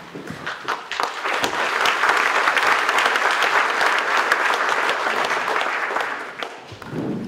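Audience applauding: clapping that builds over the first second or two, holds, then dies away about six and a half seconds in.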